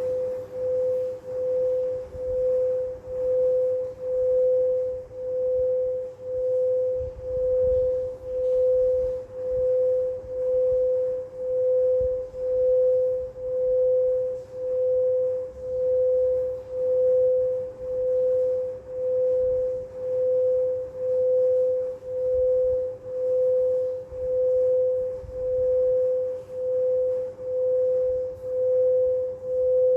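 Singing bowl giving a single sustained tone that swells and fades in a steady pulse about one and a half times a second.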